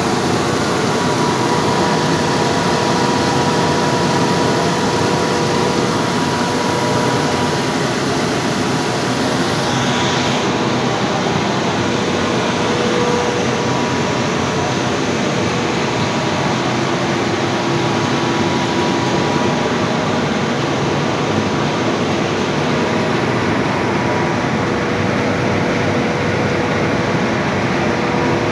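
Akyurek seed-cleaning machinery running: a loud, steady mechanical hum and noise from the screen cleaners' electric motors, vibrating sieves and aspiration fans, with a couple of faint steady tones.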